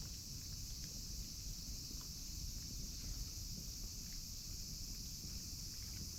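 Faint outdoor ambience: a steady high-pitched hiss, a low rumble of wind on the microphone, and scattered small ticks and clicks.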